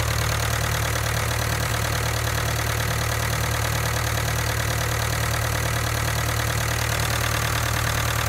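Ford 5000 Super Major tractor's four-cylinder diesel engine idling steadily after a cold start at minus ten degrees Celsius, started on glow plugs alone without pre-heating.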